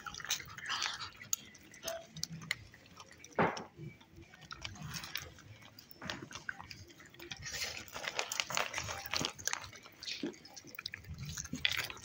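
Raccoons rummaging through mixed nuts on a metal tray, with irregular clicking and rattling of the nuts and chewing.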